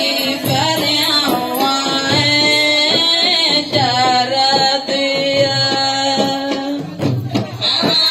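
Women singing a Comorian tari song in long, held notes, with hand-beaten frame drums keeping a steady rhythm underneath.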